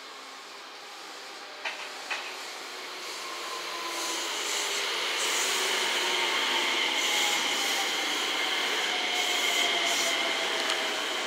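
JR West 227 series electric multiple unit running past, its VVVF inverter whining with a steady high tone over lower tones that slide slowly down in pitch, under wheel and rail running noise. It grows louder as the train comes close, with two short clicks about two seconds in.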